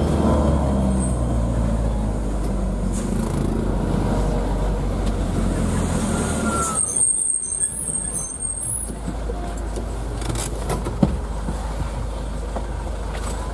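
Isuzu Elf minibus's diesel engine running steadily while driving, heard from inside the cab. About halfway through the drone thins and drops a little, and a brief high hiss comes in for a couple of seconds.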